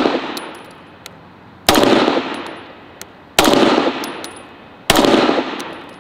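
Three 9mm pistol shots, evenly spaced about a second and a half apart, each with a long echo that fades before the next, fired slowly to zero a red-dot sight. The echo of a shot just before the start is still fading at the beginning, and faint light ticks fall between the shots.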